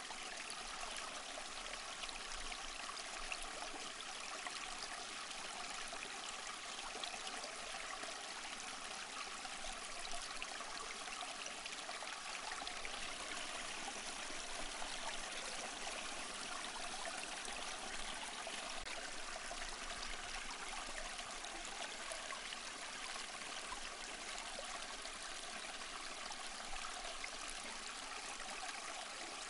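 Small stream flowing steadily: a continuous, even rush of running water.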